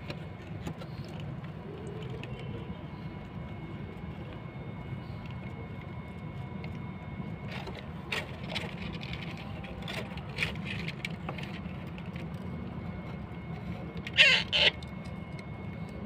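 Alexandrine parakeet chick shuffling in a cardboard box: scattered light scratches and taps over a steady low background rumble, with a short loud burst about fourteen seconds in.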